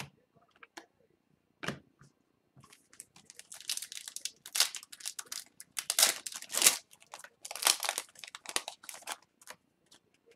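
Crinkly plastic rustling and crackling as hands slide a trading card into a clear plastic sleeve, in irregular bursts for several seconds, preceded by a single click.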